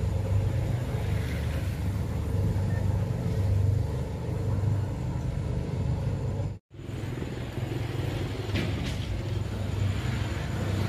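A cargo boat's engine running with a steady low rumble. The sound cuts out for an instant about two-thirds of the way through, then carries on unchanged.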